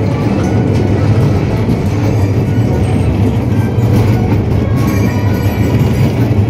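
Dark-ride car running along its track with a steady low rumble, while the ride's soundtrack music plays faintly over it.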